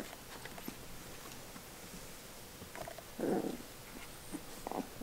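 Young English Springer Spaniel puppies stirring in a heap, with a short rough sound about three seconds in and a brief squeak near the end.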